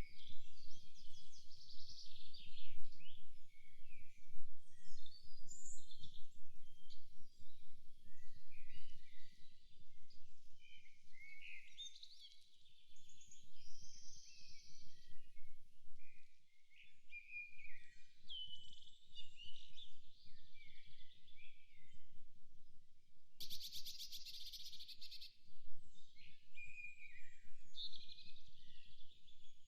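Several songbirds singing and calling in a forest, short chirps and whistled phrases overlapping, with a fast buzzing trill lasting about two seconds near the end. A low background rumble runs underneath.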